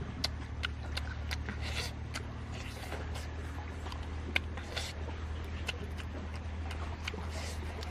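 Close eating sounds: wet chewing and lip smacks and the crack of cooked sand lobster shell being peeled by hand, heard as scattered sharp clicks over a steady low rumble.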